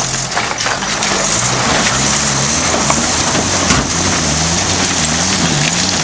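Toyota Hilux dual-cab pickup's engine revving up and down under load as it climbs a steep rocky bank, with loose rocks crunching and clattering under the tyres.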